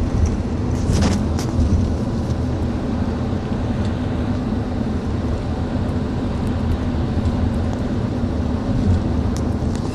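Steady engine and road drone heard from inside a car, with a couple of short sharp pops about a second in.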